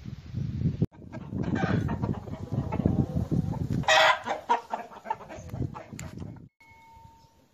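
Chickens clucking, with a loud squawk about four seconds in; the sound cuts off suddenly near the end.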